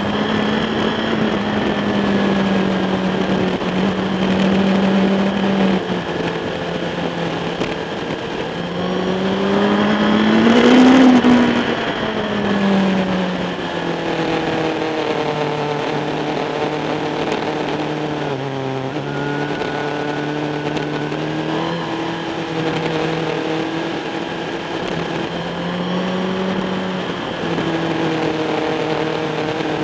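Motorcycle engine heard from a camera mounted on the bike at track speed, with wind rush. The engine note steps and glides up and down as the rider works through the gears. It is loudest about eleven seconds in, where the revs climb and then drop away.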